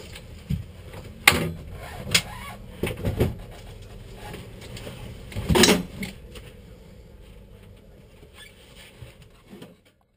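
Knocks and bumps inside a parked race car's cabin as the driver moves about, over a low steady rumble; the loudest knock comes a little before six seconds in, and the sound cuts off suddenly near the end.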